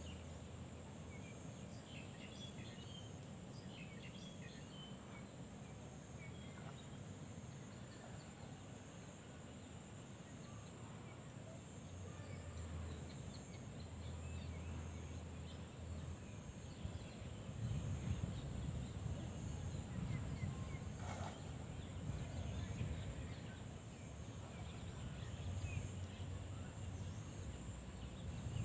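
Rural outdoor ambience: a steady high insect drone with scattered short bird chirps. A low rumble swells in the second half, and there is a single sharp click about two-thirds of the way through.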